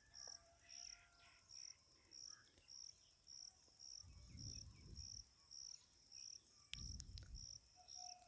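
Near silence with a cricket chirping steadily: short, high chirps about every two-thirds of a second. Faint low bumps come about four and seven seconds in.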